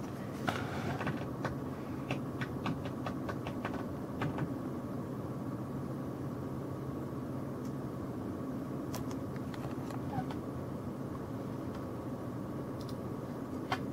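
Desktop PC's cooling fans running with a steady whir, a low hum and a faint high whine, the graphics card's fan at 40%. A quick series of clicks in the first few seconds.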